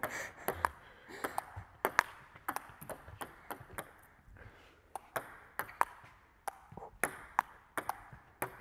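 Table tennis rally: the ball clicking sharply, a few times a second, as it is struck by the paddles and bounces on the Joola table.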